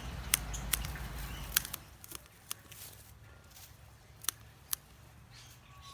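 Garden snips cutting through potato plant stems: about five sharp, separate snips at an uneven pace, over a low rumble that stops about two seconds in.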